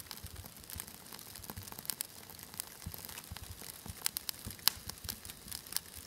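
Wood fire crackling: a steady scatter of irregular sharp pops and snaps over a faint hiss, with one louder snap about three-quarters of the way through.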